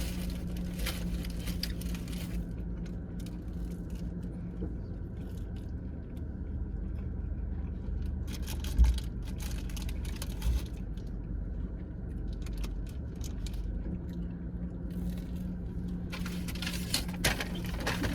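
Steady low hum of a car running, heard from inside the cabin, with a couple of small knocks and some wrapper rustling.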